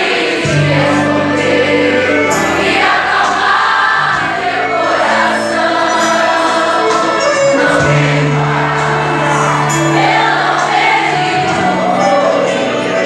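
Christian worship song: a group of voices singing over long held bass notes.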